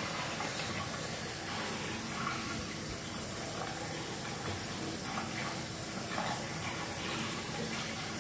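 A steady rushing hiss, unchanging throughout.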